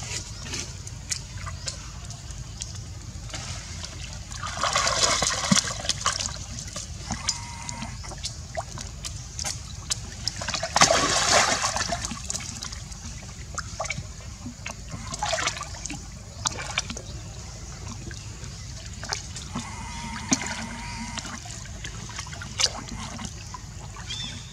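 Pool water splashing and sloshing as long-tailed macaques swim and dive in it, with louder splashes about five and eleven seconds in and scattered small drips and plops between.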